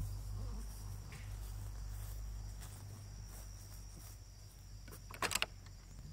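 Crickets chirring steadily over a low, steady rumble, with a quick cluster of sharp knocks about five seconds in.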